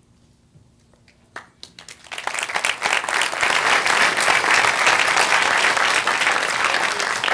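Audience applauding, starting about two seconds in with a few scattered claps and quickly building to full, steady clapping.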